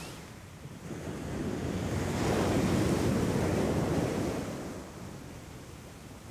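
Ocean surf breaking on a beach: a wave builds about a second in, crashes and washes up, then dies away after about four seconds.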